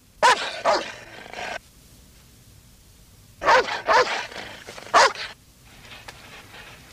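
Doberman pinschers barking in two bouts of several barks, the second starting about three seconds after the first ends.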